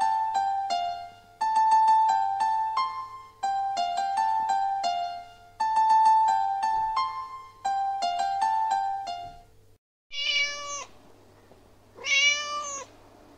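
Light keyboard music plays a short phrase of struck notes, repeating about every two seconds, then stops. After a brief gap a cat meows twice, each meow rising and falling in pitch.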